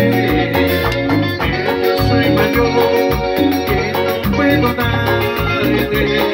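Live cumbia band playing, with electric guitar, bass and a steady percussion beat.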